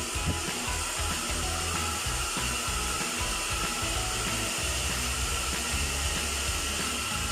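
AOKAI ionic hair dryer running steadily, a constant rush of air with a faint motor whine, its airflow buffeting the microphone as an uneven low rumble.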